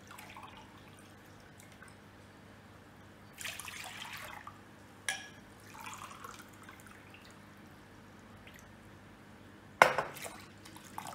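Water poured from a glass jug into a drinking glass in short splashing bursts, then the glass of water tipped into a pan of buttermilk with a sudden sharp knock and splash about ten seconds in, the loudest sound.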